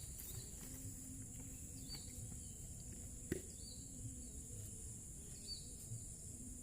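Steady high-pitched drone of evening insects such as crickets, with short chirps repeating about every second and a half. A single sharp click comes about three seconds in.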